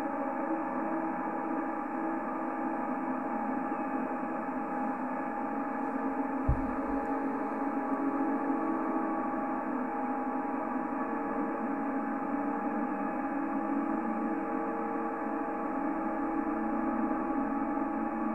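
Steady droning hum made of several held tones, confined to a narrow band like a radio's audio, with a single low thump about six and a half seconds in.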